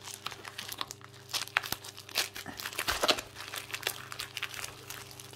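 Plastic crinkling and crackling in many short, irregular bursts as a rolled diamond painting canvas and its plastic packaging are handled, over a steady low hum.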